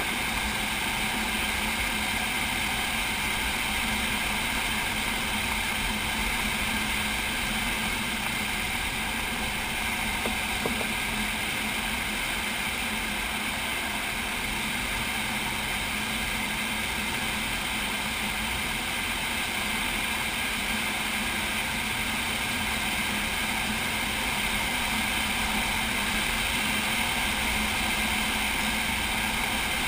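Steady rush of air streaming over a glider's canopy in flight, heard from inside the cockpit, with one or two faint ticks near the middle.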